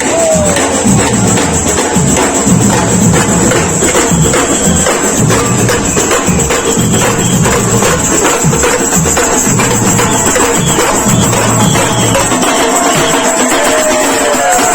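Loud music with a steady beat of percussion, jingling like a tambourine; the low drum part drops away near the end.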